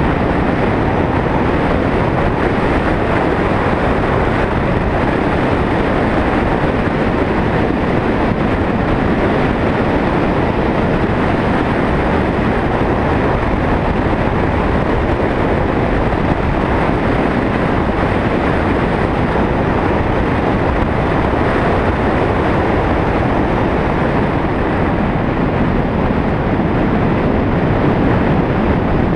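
Steady rush of wind and road noise from a car driving up a winding mountain road, picked up by a vehicle-mounted action camera. No clear engine note stands out, and the level stays even throughout.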